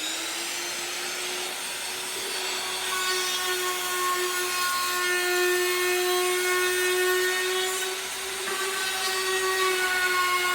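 Electric trim router with a round-over bit running at full speed with a steady high whine, cutting a rounded edge along a wooden trim board.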